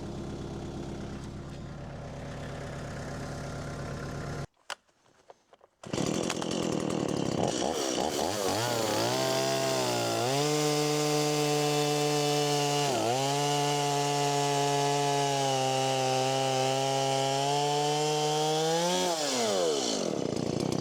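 A small engine running steadily, then after a short break a chainsaw revs up and is held at high speed while cutting timber, its pitch dipping once briefly under load about halfway through. It drops back off full throttle near the end.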